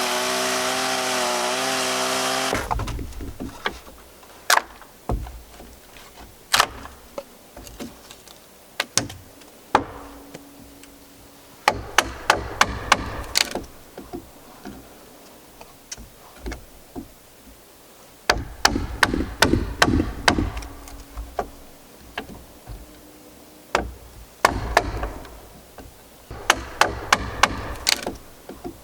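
A chainsaw running, which shuts off about two and a half seconds in. After it, sharp wooden knocks and clacks, some in quick bunches of strikes with low thuds, and quieter handling noises between them.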